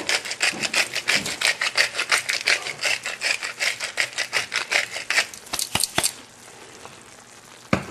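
Salt being added to the kasha pot: a rapid, even run of crisp ticks, about five a second, for roughly six seconds, ending with two sharper clicks.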